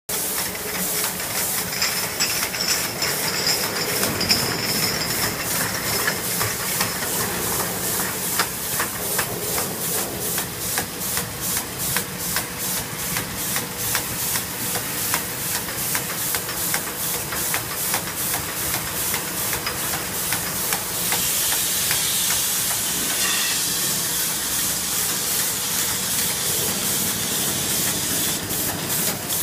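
DCGF32-32-10 glass-bottle carbonated drink rinsing-filling-capping machine running: a steady hiss of air or gas with rhythmic clicking about two or three times a second. The hiss grows louder about two-thirds of the way through.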